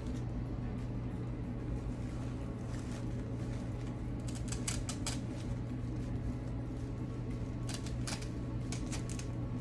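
Artificial silk flowers and their stems being handled, with clusters of sharp clicks and rustles about four seconds in and again around eight to nine seconds, over a steady low room hum.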